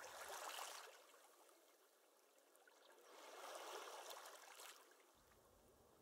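Faint flowing river water, an even rushing that swells slightly twice, at the start and again about three seconds in.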